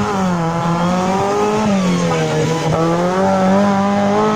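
Off-road 4x4's engine running hard under load, its pitch held high and dipping briefly twice.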